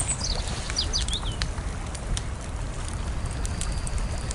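Outdoor ambience: a steady low rumble, with a small bird chirping several times in the first second and a half and a few faint clicks later.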